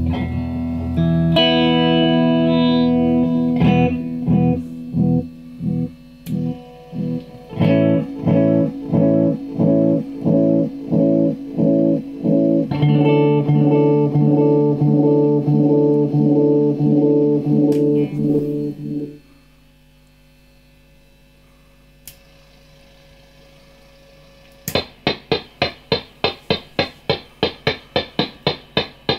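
Electric guitar played through a homemade delay pedal. A held chord is followed by pulsing repeats about twice a second that cut off about 19 seconds in. After a quiet gap, a fast train of short, brighter repeats, about four a second, starts near the end.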